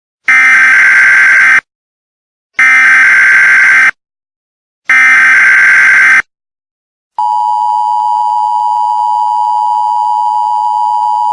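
Emergency Alert System signal: three loud, harsh, screeching data bursts of the SAME header, each a little over a second long with about a second between them, then the steady two-tone EAS attention signal starting about seven seconds in.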